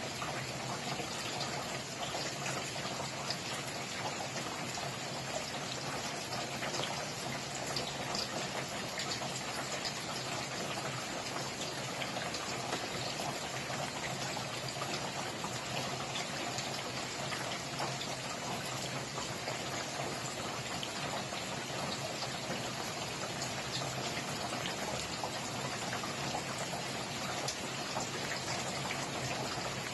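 Rain falling steadily, a dense, even patter of drops that never lets up.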